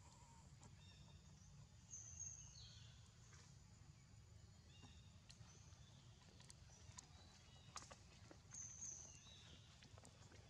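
Near silence: faint outdoor ambience with a low rumble and scattered faint bird calls. Two short high whistles come about two seconds in and again later on.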